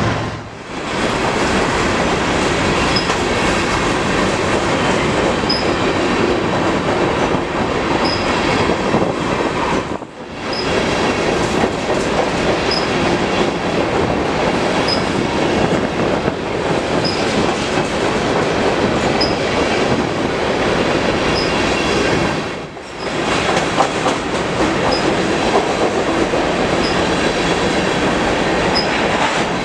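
Empty grain train of covered hopper cars rolling past at close range: a steady rumble and clatter of steel wheels on the rails, with wheel squeal mixed in.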